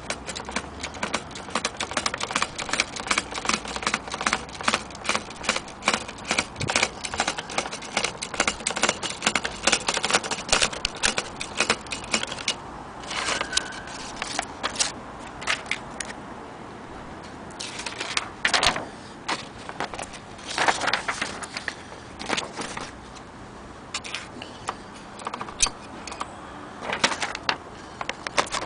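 Antique Corona typewriter being typed on: rapid key strikes, several a second, for about the first twelve seconds, then sparser clicks with a few longer noises in between.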